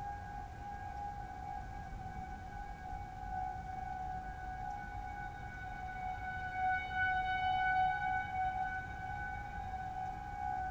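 Several distant Federal Signal 2001 single-tone rotating tornado-warning sirens wailing together on a steady pitch, their tones slightly apart. The sound swells louder about two-thirds of the way through as a rotating horn sweeps toward the listener.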